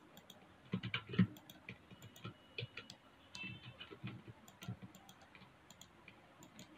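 Faint, irregular clicks of a computer mouse and keyboard, with a small cluster about a second in.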